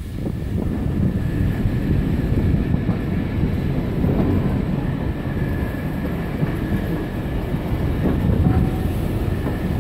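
BR Standard Class 5MT 4-6-0 steam locomotive moving slowly under its own power: a steady low rumble.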